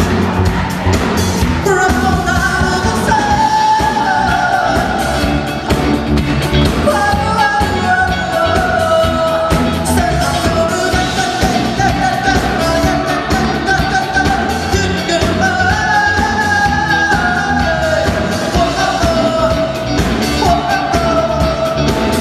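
Live pop music: a band playing a steady beat, with a singer's melody coming in about two seconds in.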